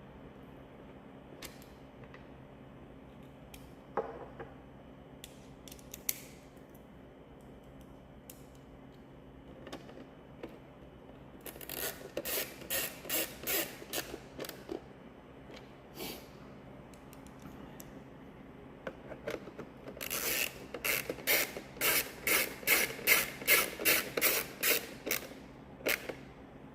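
Screwdriver driving small screws into the instrument cluster housing: a few scattered clicks, then two runs of quick, evenly spaced scraping turns, the second longer and louder.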